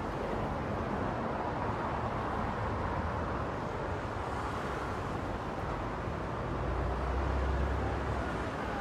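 Steady road and tyre noise with engine hum inside a car driving at speed on a dual carriageway. A low rumble grows louder for about a second and a half near the end.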